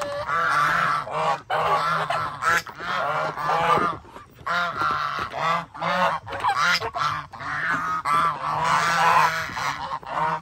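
A flock of domestic geese honking, many short overlapping calls one after another, with a few brief lulls.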